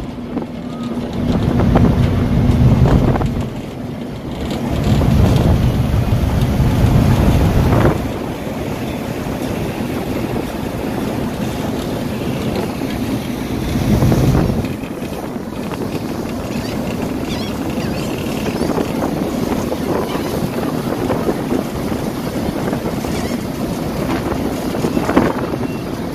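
Wind buffeting the microphone in strong gusts during the first eight seconds and again around 14 seconds, over the steady rush of churning wake water from a car ferry under way.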